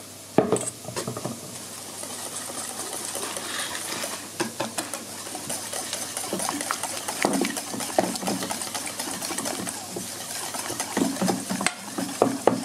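Eggs, flour and milk being stirred together in a bowl: a continuous scraping and many quick clicks of the utensil against the bowl, with a sharp knock about half a second in.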